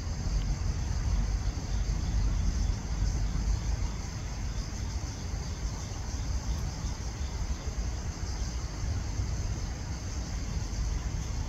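Steady low rumble of distant road traffic, with a constant high-pitched chirring of insects over it.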